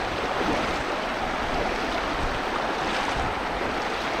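Fast river current rushing, a steady, even noise of running water.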